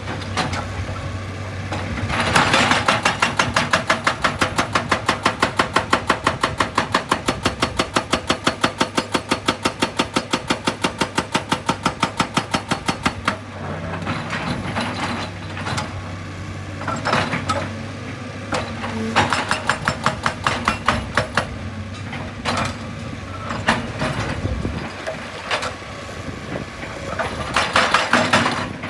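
Heavy machine's hydraulic percussion hammer pounding rock in a rapid, steady run of blows for about ten seconds, then stopping; after that the diesel engine runs on with scattered bangs and scrapes of rock, and a short burst of hammering comes again near the end.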